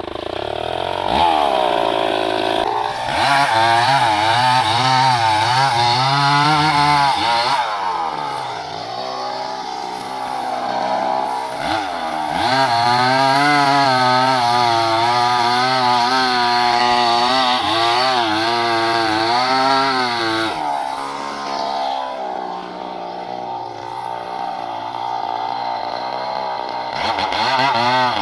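Chainsaw running at high revs while cutting wood. The engine note sags and recovers several times, dropping briefly about eight and twelve seconds in and again for a couple of seconds past the twenty-second mark, as the bar bites into the cut and the throttle is eased.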